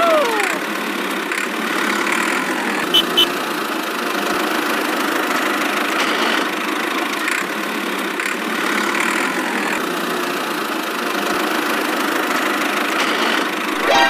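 Steady engine-like motor noise as a miniature toy tractor drives along, running at an even level, with two quick sharp clicks about three seconds in.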